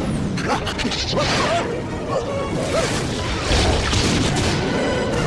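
Animated film action soundtrack: dramatic orchestral music under crashes and whooshing sound effects.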